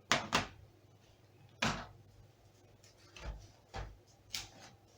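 A handful of separate sharp knocks and clacks of objects being handled: two close together at the start, a louder one under two seconds in, then a few softer ones near the end.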